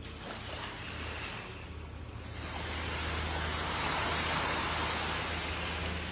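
Ocean waves breaking on a beach: a rushing wash of surf swells about two seconds in, is loudest around four seconds, then eases off. A steady low hum runs underneath.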